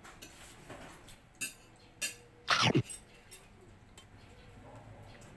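A few light clinks of utensils on dishes during a meal, and about halfway through a short, loud squeal that drops sharply in pitch.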